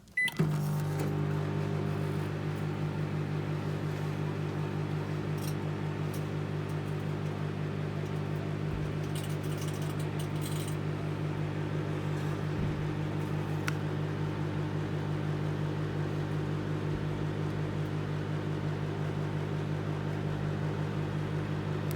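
Microwave oven beeping once as it is started, then running with a steady low hum, with a few faint clicks in the middle. Staples are heating inside.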